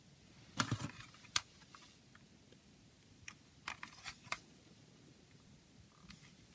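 Plastic CD jewel case picked up off a table and handled: a cluster of clicks and knocks about half a second in, a sharp click soon after, then several lighter plastic clicks as it is turned over in the hands.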